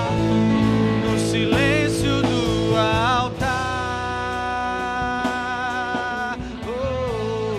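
Worship song with a sung melody, long held notes and guitar accompaniment.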